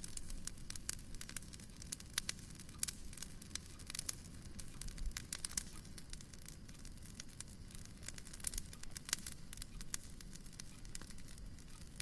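Wood fire crackling in a fireplace: irregular sharp snaps and pops over a low steady rumble.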